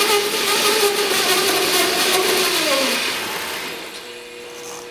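Homemade bandsaw sawmill driven by an electric motor, running free with a loud whine, then winding down after about three seconds as the whine falls in pitch and the noise fades, leaving a faint steady hum.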